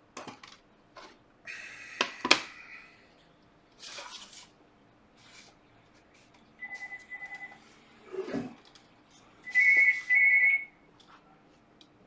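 Clicks and rustles of an opened iPad and its parts being handled and pressed into place, the sharpest click about two seconds in. After about six seconds an electronic tone trills briefly, then sounds again louder as two short tones near the end.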